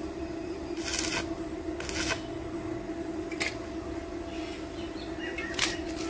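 A few short scraping clicks of parts being handled, about a second apart at first and then more spread out, over a steady low hum.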